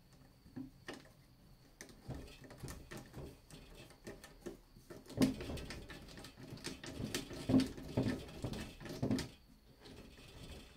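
Steel bar clamp being fitted across a glued-up board and its screw wound tight by its wooden handle: a run of small clicks, rattles and creaks, with a few louder knocks and squeaks between about five and nine seconds in.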